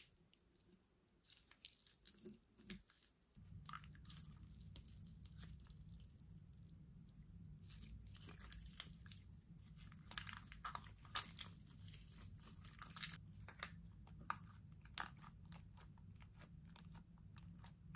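Gamma Glow toy slime being pulled, squeezed and stretched by hand, making many small sticky crackles and pops, busiest in the middle. A faint steady low hum runs underneath from about three seconds in.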